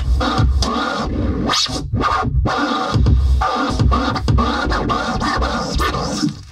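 Electronic beat with turntable-style scratching, played on a Native Instruments Maschine groovebox: heavy bass hits under quick scratch swoops. The music fades out and stops right at the end.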